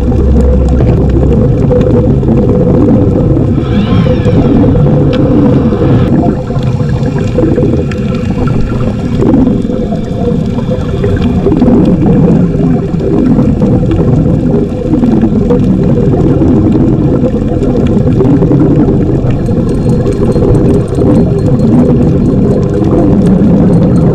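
Boat engine running steadily, a loud low rumble with a wavering drone.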